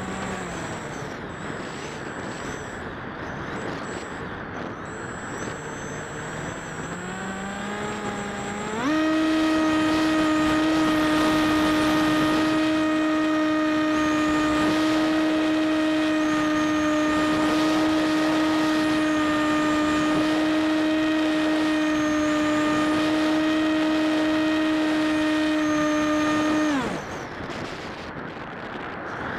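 The AXN RC plane's electric motor and propeller, heard from the onboard camera: a steady whine at part throttle that jumps to a higher, louder pitch about nine seconds in. It holds there for some eighteen seconds, then drops back near the end. Wind rushes over the microphone throughout.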